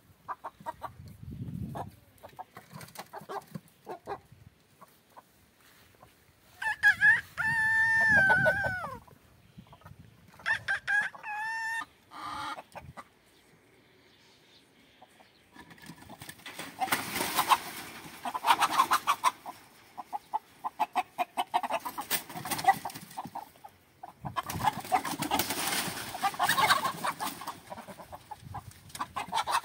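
A rooster crows once, about seven seconds in: a long held call that drops in pitch at the end. It is followed by a few shorter calls. Later come two longer stretches of dense, rough, rapid sound.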